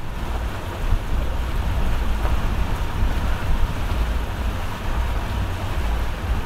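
Wind buffeting the microphone, a heavy uneven rumble, over a steady wash of open water and boat noise.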